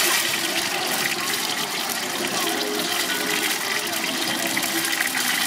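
Hot oil sizzling and bubbling steadily as corn on the cob deep-fries in it.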